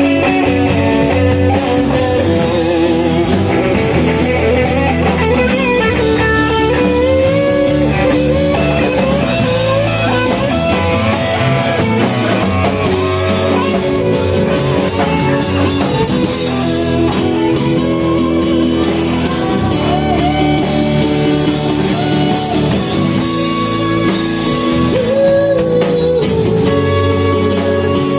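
A live band playing blues-rock: guitar and drum kit under a wavering lead melody line.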